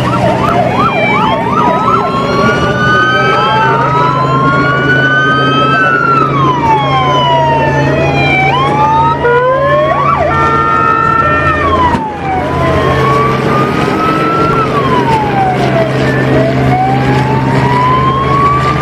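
Several police vehicle sirens wailing at once, their tones slowly rising and falling out of step with one another, over a steady low hum. The sound dips briefly about twelve seconds in.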